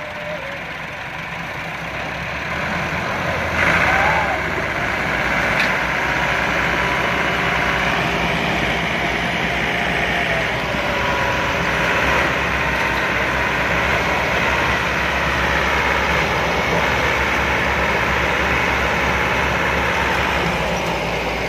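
Massey Ferguson 385 and a second tractor, chained together in a tug-of-war, with their diesel engines running hard under full pulling load. The engines are loud and steady, and they get louder about three and a half seconds in.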